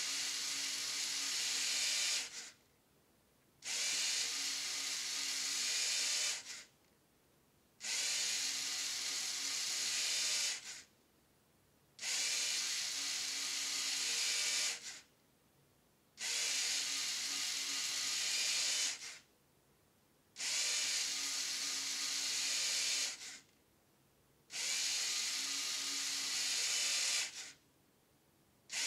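LEGO Mindstorms NXT motors whirring through plastic gears and camshafts in repeated runs of about three seconds, each followed by a pause of about a second. Each run turns the follower cams on to the next number of the display.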